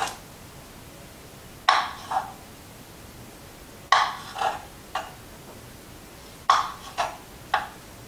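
Small kitchen knife tapping down on a cutting board while halving grape tomatoes: about eight sharp knocks in quick groups of two or three.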